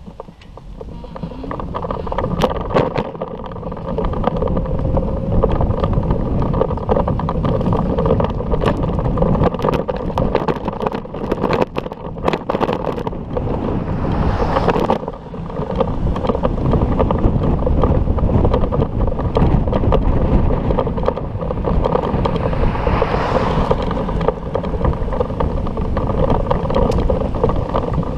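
Wind rushing over an action camera's microphone while riding a bicycle along a road. It builds over the first few seconds as the bike gets going, and stays a loud, low, muffled rush broken by scattered clicks and knocks.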